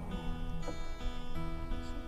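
Background music of acoustic guitar playing sustained notes.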